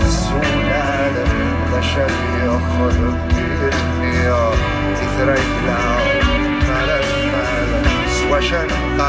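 Amplified live band playing a Kabyle folk-rock song, with bass, drums and guitar, and a wavering melodic line over the top.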